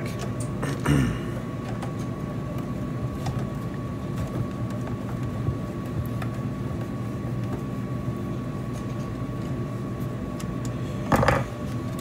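Screws being taken out of the plastic back housing of an MEI TRC-6512 coin changer: a few faint clicks and handling knocks over a steady hum with a faint high tone. There is a louder rustle of handling about eleven seconds in.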